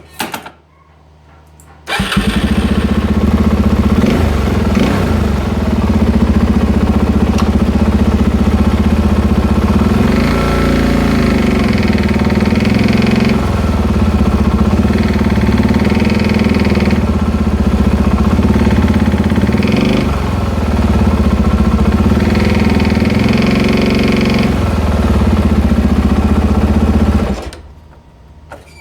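2009 Suzuki DR-Z400's single-cylinder engine starts about two seconds in, runs and is revved up several times, then shuts off near the end. The engine makes a knocking noise that the owner hears under load, coming from under the head above the cylinder, and whose cause he does not know.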